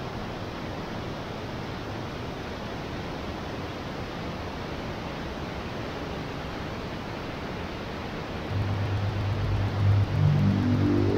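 Whitewater mountain river rushing over boulders, a steady even rush. About three-quarters of the way through, a low synthesizer bass note comes in and a rising synth tone follows near the end as electronic music starts.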